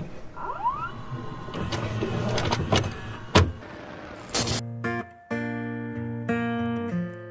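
VCR tape-mechanism sound effect: a motor whir and hum with clicks and a short rising whine as a videotape loads and starts to play, ending in a sharp click. About four and a half seconds in, soft music with guitar begins.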